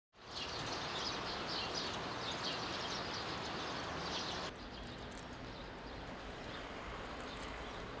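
Outdoor rural ambience: a steady hiss with many short, high chirping calls over it. About four and a half seconds in, it cuts to a quieter hiss with fewer calls.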